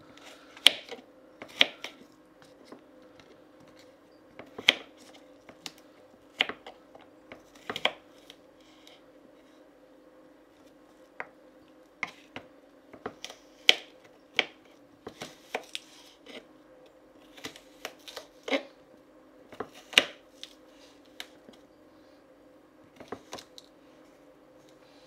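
Kitchen knife cutting carrot slices on a wooden cutting board: irregular sharp knocks of the blade meeting the board, about one every second or two, over a steady low hum.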